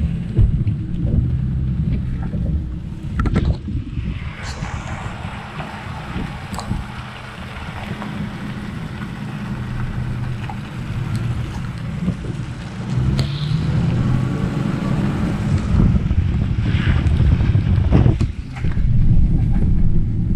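Pickup truck driving on a wet gravel road, heard from inside the cab: a steady low rumble of engine and tyres, with a few sharp knocks from bumps and gravel along the way.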